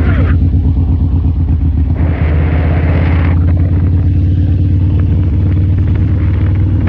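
Harley-Davidson V-twin motorcycle engine running steadily with a deep, even exhaust pulse. About two seconds in, a burst of rushing noise lasts a little over a second.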